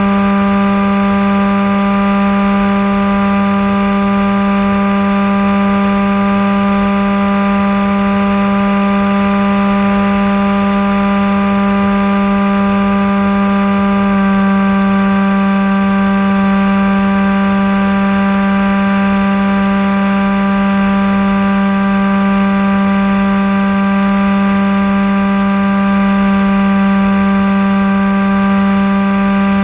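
An RC plane's motor and propeller droning steadily in flight, heard from the onboard camera, at one steady pitch that shifts slightly about halfway through.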